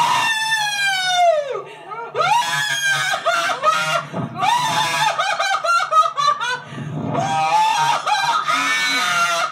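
A woman screaming in terror on a bungee slingshot ride: long, high shrieks that slide down in pitch, in about four bouts with short breaks between.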